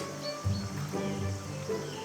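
Background music: a documentary score with low held notes.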